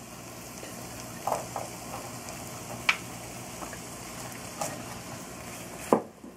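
Chorizo and diced onion frying in olive oil in a pan, a steady sizzle. A few short knocks come as the onion is tipped in from a glass bowl and stirred with a wooden spoon.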